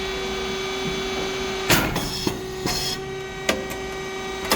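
Rice cake popping machine running with a steady hum. About halfway through comes a loud sharp burst with a hiss, then another hiss a second later and a few sharp mechanical clicks.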